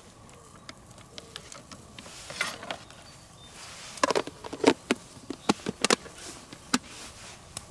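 Meat and vegetable skewers sizzling over charcoal on a small folding grill: a steady hiss with sharp crackles and pops, coming thickest from about four to seven seconds in.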